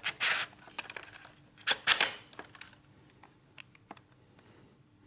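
Plastic handling noises as a battery pack is pushed into a Siemens P1 carphone: two brief rustling, scraping bursts, the second louder, then a few light clicks as buttons on its handset are pressed.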